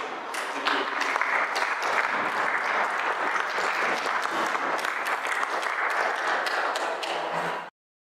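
Audience applauding, a steady patter of many hands clapping, cut off abruptly near the end.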